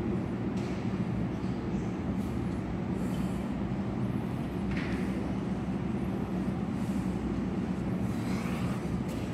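Steady low mechanical hum, like a ventilation unit running in a sports hall, at an even level throughout. A faint short rustle comes about five seconds in.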